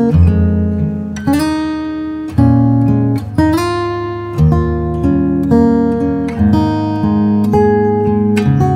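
Hsienmo Spring GA cutaway acoustic guitar played fingerstyle, demonstrating its tone: a slow passage of plucked bass notes and chords, a new one about once a second, each left to ring.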